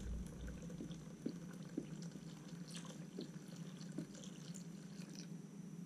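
Thin clear liquid poured in a stream from a metal quart can into a plastic mixing cup of paint: a faint trickle with scattered small drips and splashes over a low steady hum.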